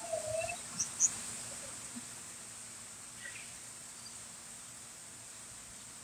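A few short, faint bird chirps in the first second or so, with one more near the middle, over quiet, steady outdoor ambience.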